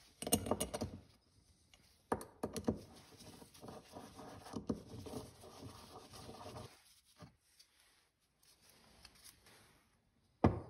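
Metal parts of a snowmobile carburetor handled on a wooden workbench and screws turned in by hand: a few sharp clicks and knocks, then several seconds of fine rubbing and scraping, with a few faint clicks near the end.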